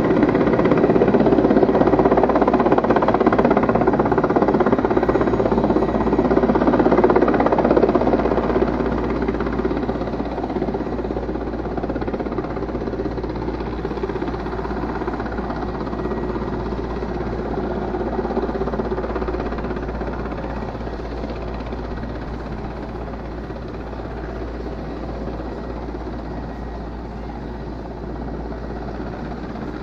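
Air Force helicopter's rotor and engine drone, loudest for the first eight seconds or so, then fading steadily as the helicopter flies off.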